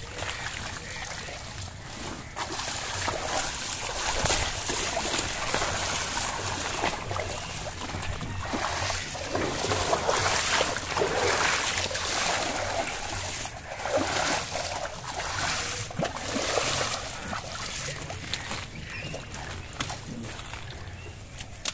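Hands splashing and sloshing in shallow muddy water, in irregular bursts that are loudest around the middle.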